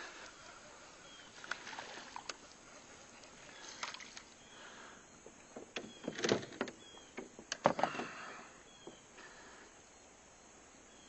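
A small bass being landed into a kayak: a series of short splashes and knocks, loudest about six and seven and a half seconds in.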